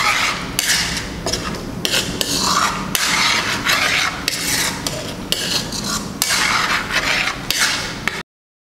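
Metal spoon scraping around a wok, stirring thick, bubbling sambal paste in repeated rasping strokes. The sound cuts off suddenly near the end.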